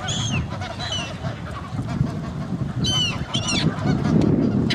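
Waterbirds calling: several short, sharp, high calls that slide downward in pitch, a couple near the start and a quick run of them about three seconds in, over a steady low rumble.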